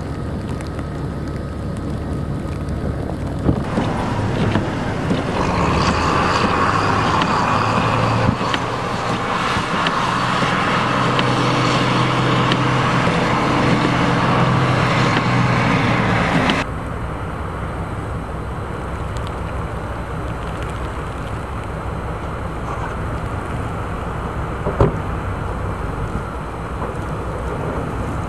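Motor vehicle engine and road noise. Louder engine-like running through the middle, then an abrupt cut about 17 seconds in to a steadier hiss, with one sharp tick near the end.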